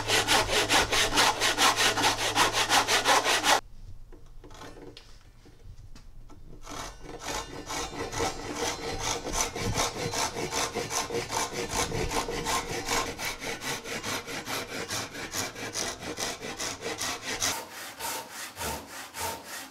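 Hand saws rip-cutting hardwood tenon cheeks with rapid, even strokes. First a brass-backed Western backsaw; it stops suddenly about three and a half seconds in, and after a quieter stretch a Japanese saw with coarse rip teeth takes up a steady stroke that grows louder.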